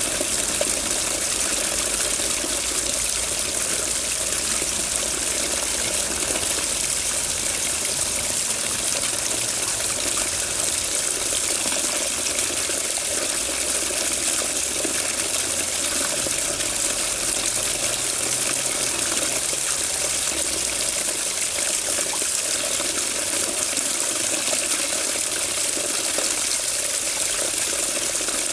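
Running water, a steady gushing flow that does not change.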